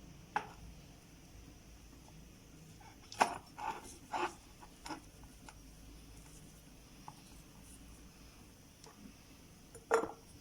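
Scattered knocks and clinks against a jar as salt-stuffed lemons are pressed in one on top of another: a few irregular taps, a quick cluster a few seconds in, and a sharper knock near the end.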